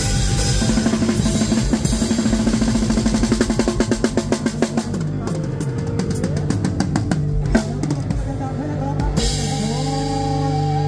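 Rock music led by a drum kit playing fast rolls and fills, with held notes and bending guitar-like notes in the second half.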